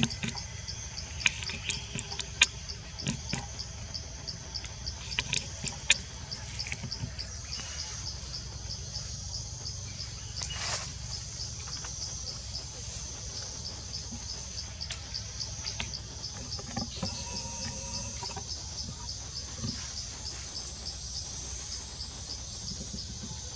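Forest ambience dominated by an insect chirping steadily in a high, even pulse, about four to five pulses a second. Several sharp clicks come in the first few seconds, and a brief call with a few stacked tones is heard about two-thirds of the way through.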